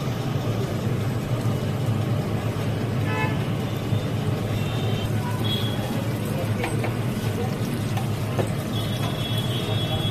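Steady low rumble like street traffic, with the hiss of a batter-coated vada deep-frying in hot oil under it. A few brief high tones come through, the first about three seconds in.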